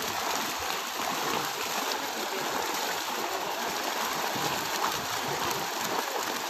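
Continuous, dense splashing of many milkfish leaping and thrashing at the water's surface as a seine net is drawn tight around them during a pond harvest.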